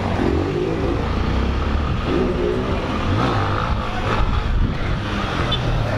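Small single-cylinder motorcycle engine running under the rider, revving up and down a couple of times as the bike pulls through a turn, with wind noise rushing over the microphone.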